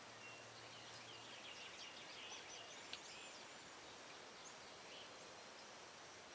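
Faint, quick songbird chirps and trills over a quiet background hiss, with one small click about three seconds in.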